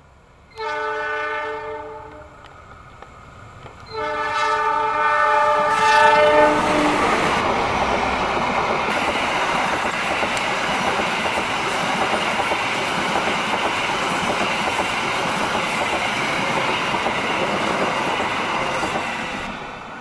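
KA Argo Wilis passenger train: its diesel locomotive sounds two horn blasts, the first about a second and a half long and the second about two and a half. The train then passes close by with a loud, steady rumble of wheels on the rails for about twelve seconds, fading near the end as it runs away.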